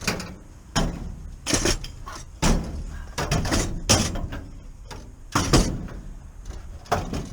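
A string of irregular clunks and knocks, about eight in all, as a bucket seat is turned around and worked into place on the floor of a car's interior.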